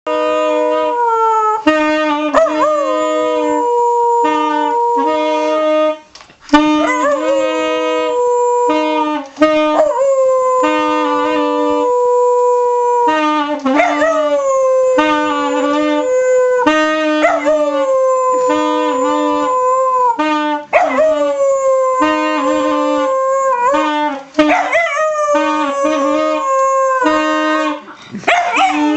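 A dog howls along with a saxophone, giving long howls that slide down in pitch, over and over. Under the howls the saxophone plays short repeated notes on one low pitch.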